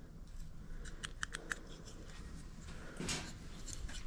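Faint handling noise: a quick run of four or five light clicks about a second in, then a brief rustle near the end.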